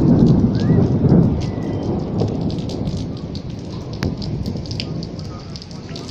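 Heavy rain falling, with many sharp drop ticks close by, while a loud rumble of thunder dies away over the first couple of seconds.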